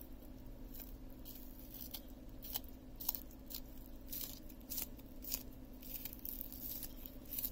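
Fresh spring onion stalks being cut into small pieces by hand with a blade, a string of short, crisp snips at irregular intervals.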